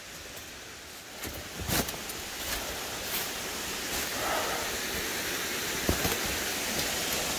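Steady rush of a waterfall and stream, swelling louder from about a second in, with a few crunching footsteps on dry leaves and rock.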